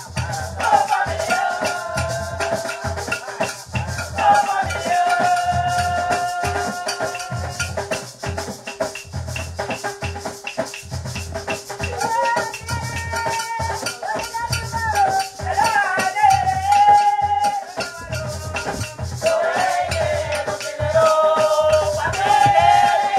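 Garifuna paranda music: women singing over a hand drum beating a steady rhythm, with a rattle keeping time.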